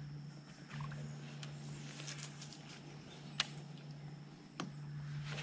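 Low steady hum on a bass boat's front deck while a lure is reeled in, with one sharp click about three and a half seconds in and a softer knock about a second later.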